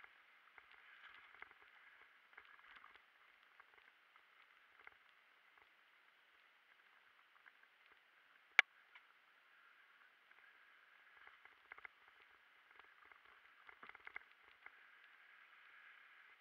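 Faint, muffled scuffing and rattling from a camera moving along a dirt trail, with light knocks throughout and one sharp click about halfway through.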